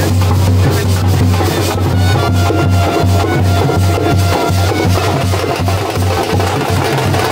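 Loud festive music driven by a dhol, a two-headed barrel drum, beaten with sticks in a dense steady rhythm over a heavy pulsing bass, with a held melody line in the middle.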